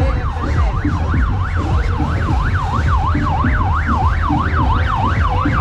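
Electronic yelp siren sweeping rapidly up and down, about two sweeps a second, then cutting off suddenly at the end, over a heavy bass beat of loud music.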